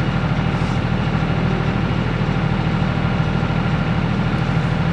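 Compact diesel tractor engine idling steadily, a low, even hum with a fast pulse.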